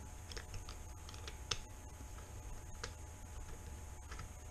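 Faint, irregular light clicks of a hand Torx driver turning screws out of the speed-controller cover on a Bafang M600 mid-drive motor casing. A few sharper clicks come about a third, one and a half and nearly three seconds in.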